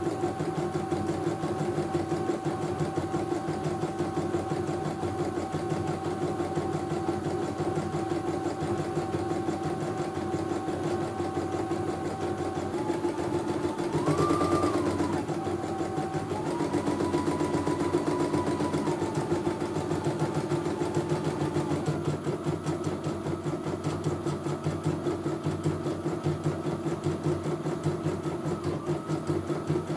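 CNY E900 computerized embroidery machine stitching a test design, its needle running in a fast, even rhythm over a steady motor whine. The whine steps up and down in pitch several times in the second half as the machine's speed changes.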